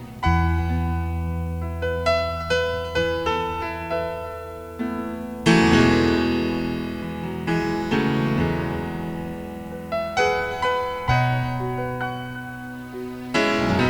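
Slow piano or electric piano music: struck chords and single notes ringing and fading, over a sustained bass.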